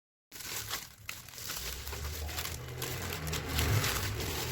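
Parcel packaging being torn open and crinkled by hand, a dense crackling and rustling that starts suddenly about a third of a second in.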